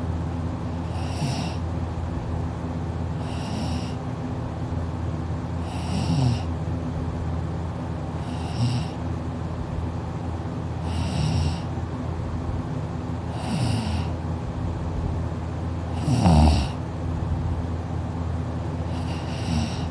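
A person snoring heavily in deep sleep, one snore about every two and a half seconds, the loudest about sixteen seconds in. A steady low hum runs underneath.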